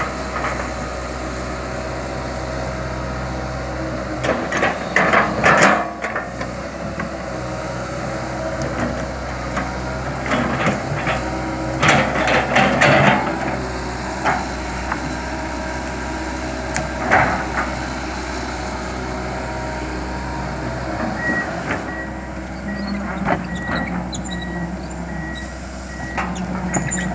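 Komatsu PC200LC tracked excavator's diesel engine running steadily while it works, with clusters of loud knocks and clanks several times. A repeated high beeping, the excavator's travel alarm, starts about two-thirds of the way through.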